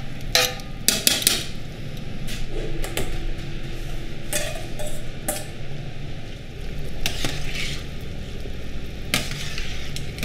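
Metal tongs clinking and scraping on a stainless steel tray as pieces of beef offal are slid into a pot of boiling water. A few separate clanks of steel kitchenware follow over a steady rushing background.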